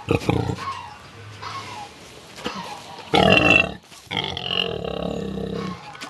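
Domestic pig grunting close up: a short grunt at the start, a loud grunt about three seconds in, then a longer drawn-out grunt.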